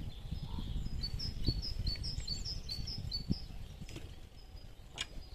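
A small songbird singing a quick run of short, repeated high chirps for about two seconds, over a steady low rumble. A sharp click sounds near the end.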